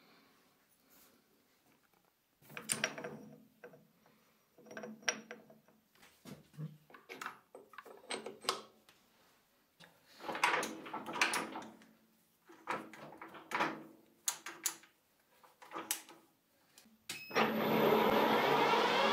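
Metal clunks and clicks, on and off, as the lathe's gearbox selector knobs are turned and set. About 17 seconds in the lathe starts and runs steadily, its chuck and polygon-turning attachment spinning with a steady whine.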